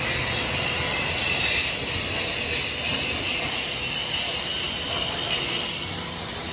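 Steady machine-shop din from a large manual lathe turning a big spoked wheel: an even, continuous hiss and rumble with no separate knocks.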